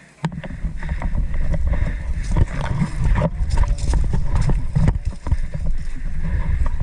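Running footsteps with gear rattling and heavy thumping and rumble on the body-worn microphone, starting suddenly just after the start.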